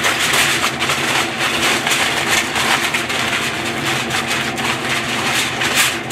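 Aluminium foil crinkling and crackling as it is crumpled tightly around grilled steaks by hand, wrapping them to rest. A faint steady hum runs underneath.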